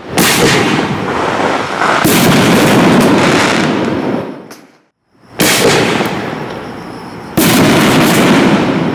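5-inch canister aerial fireworks shells firing twice: each time a sharp bang, then about two seconds later a louder burst with a long echoing tail.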